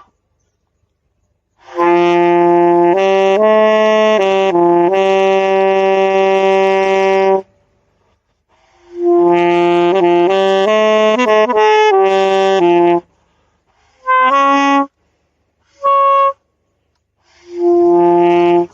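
A wind instrument played by a returning learner practising a steady tone: two long phrases of held notes, then three short single notes near the end.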